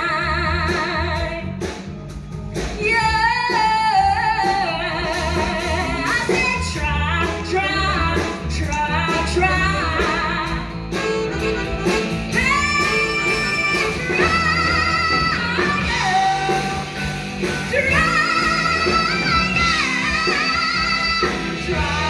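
Female singer belting a blues-rock number with a live rock band, holding long wavering notes with heavy vibrato, most clearly in the middle and again near the end, over steady bass and guitar.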